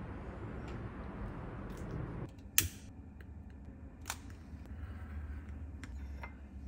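Steady outdoor background noise for about two seconds. Then, in a quieter room, a utility lighter's igniter gives one sharp click, the loudest sound, followed by a second click about a second and a half later and a few faint taps near the end.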